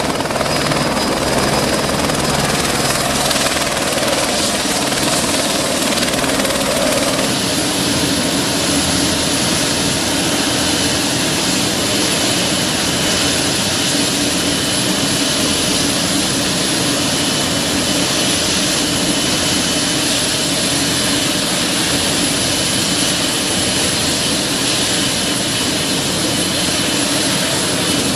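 Helicopter running on the ground with its rotors turning: a steady turbine whine over rotor noise, changing abruptly about seven seconds in.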